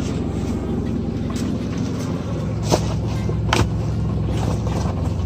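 Truck engine idling steadily, heard from inside the cab, with two sharp clicks a little after the middle.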